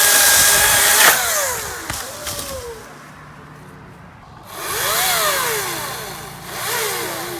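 Ryobi 40-volt brushless cordless chainsaw cutting wood in bursts: it runs loud, is released about a second in and whines down. Partway through it is triggered again, its pitch rising and falling, with a shorter burst near the end.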